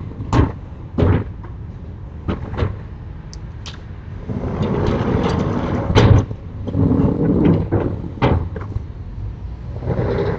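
Sliding storm shutters (amado) being pushed along their track: several sharp knocks, then a longer rumbling slide from about four and a half seconds in that ends in a loud bang about six seconds in, followed by more sliding and knocks.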